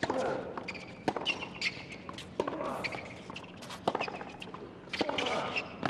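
Tennis ball struck back and forth in a rally on a hard court: sharp racket hits about every second to second and a half, with quieter ball bounces between them.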